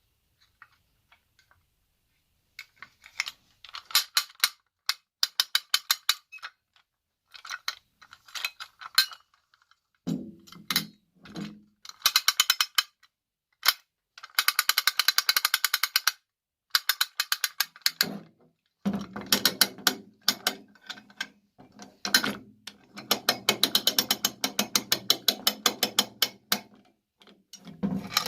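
Ratchet wrench clicking in repeated bursts of fast, even clicks as fasteners on the winch are worked loose. A lower steady tone sits under some of the later bursts.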